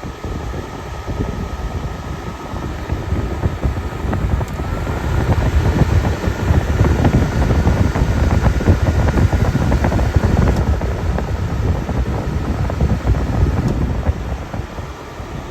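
A Fedders-built 10,000 BTU room air conditioner running on cooling, its fan blowing a loud, steady rush of air with a faint thin whine over it. The rush swells for a few seconds in the middle.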